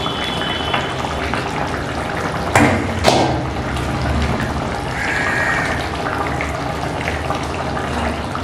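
Thin hilsa fish curry simmering in an uncovered kadai on the gas, a steady watery bubbling. Two sharp knocks about two and a half and three seconds in.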